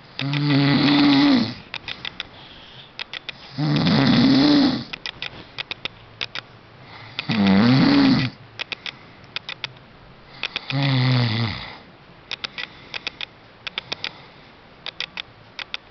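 A sleeping pet snoring: four long, pitched snores about three and a half seconds apart, with runs of short clicking sounds between them.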